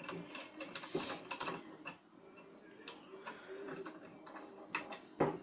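Irregular clicks and light knocks from the metal body of a ceiling fan being handled and turned by hand after its bearing was replaced.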